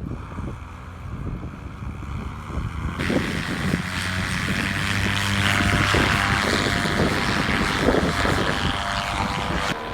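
Paramotor engine and propeller running steadily, with a rushing noise that builds up in the middle.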